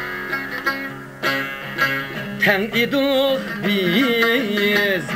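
A man sings with a wavering vibrato, accompanied by a long-necked plucked lute. The lute plays alone for about the first two seconds, and the voice comes in about halfway.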